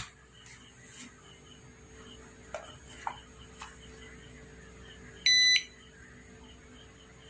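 A click as power is switched on, a few light clicks, then about five seconds in a single short, loud beep from the Hitachi inverter air conditioner's indoor PCB buzzer, over a faint steady hum.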